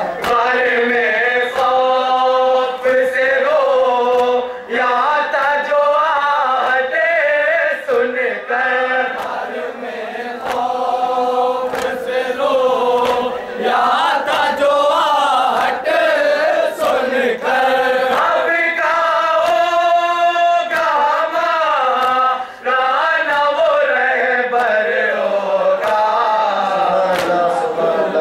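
A group of men chanting a nauha, a Shia mourning lament, together into microphones, sung in long phrases with short breaks between them.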